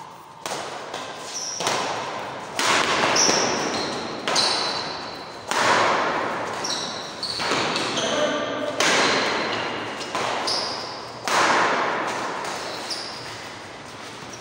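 Badminton rally: racket strings strike the shuttlecock about once every second or so, and each crisp hit rings on in the echoing hall. Short high squeaks of shoes on the court floor come between the hits.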